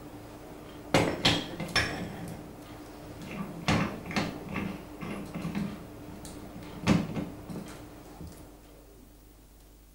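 Metal clanks and scraping as a brass denture flask is set into a screw flask clamp and the clamp's T-handle screw is turned down to press the acrylic dough. Three sharp clanks come about a second in, and more come around four and seven seconds, with rattling between them.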